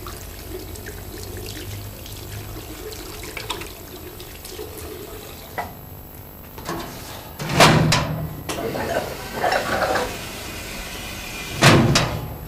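Water running from a washbasin tap, then two loud thuds about four seconds apart, the second near the end, with scattered knocking and rustling between them.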